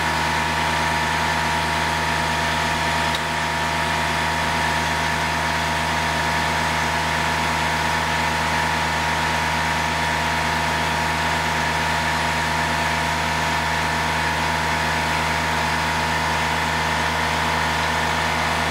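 Kubota-based tractor engine idling steadily.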